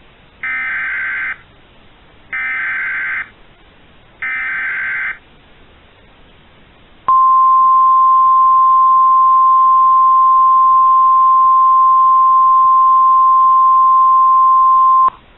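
Three short data bursts of an emergency alert header (SAME code), each about a second long with about a second between them. A few seconds later comes the NOAA Weather Radio warning alarm, a single steady 1050 Hz tone held for about eight seconds that cuts off sharply. It is the signal that a warning message is about to follow.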